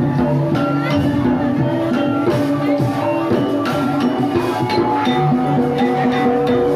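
Traditional Banyumasan ebeg accompaniment music: an ensemble of struck pitched notes and drums playing a continuous, steady rhythm.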